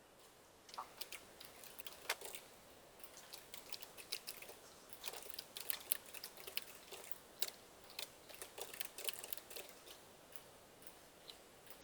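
Computer keyboard typing: a faint, irregular run of key clicks.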